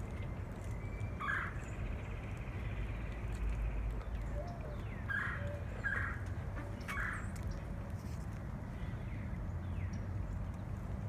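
Four short bird calls, one about a second in and three close together around the middle, over a steady low outdoor rumble.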